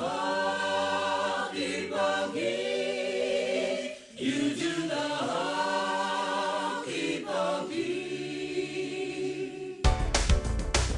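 A choir singing slow, sustained chords a cappella, in long phrases with short breaths between them. Near the end, loud band music with a steady drum beat cuts in abruptly.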